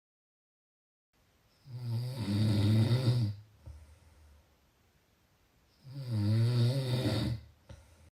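Snoring: two long, pitched, rattling snores about four seconds apart, the first starting about one and a half seconds in.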